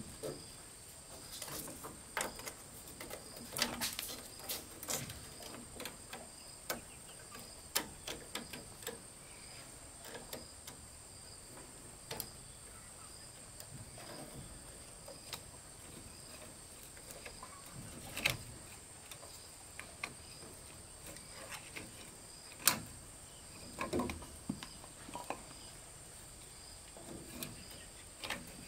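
A steady high insect drone, with scattered knocks and clicks over it throughout and a few sharper knocks in the second half.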